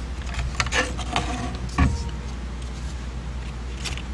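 Thin plywood cutouts being shifted and set down on a craft mat: a few light clicks and scrapes, then a single knock a little under two seconds in, over a steady low hum.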